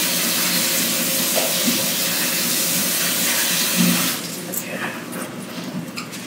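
Kitchen tap running into the sink as rice is rinsed to wash out its starch, shut off about four seconds in. A few light clicks follow.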